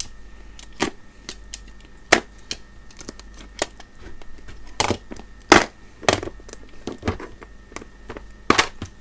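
Clear plastic test-lead storage case being handled and opened: a string of irregular sharp plastic clicks and snaps from its lid and latch, the loudest about five and a half seconds in.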